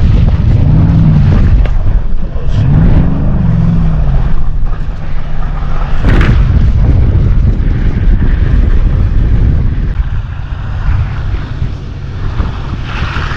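Off-road truck engine revving up and back down twice in the first few seconds under a heavy low rumble, with a sharp knock about six seconds in.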